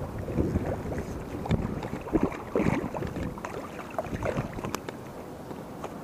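Water splashing in irregular bursts as a hooked walleye thrashes in the shallows and is landed by hand, busiest two to three seconds in.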